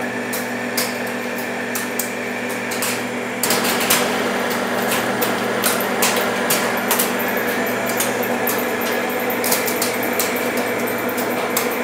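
Metal lathe running under a boring cut inside a sprocket's bore: a steady gear hum under a dense cutting hiss, with frequent sharp ticks. It grows louder about three and a half seconds in. The bore is being opened up to size for a shrink fit.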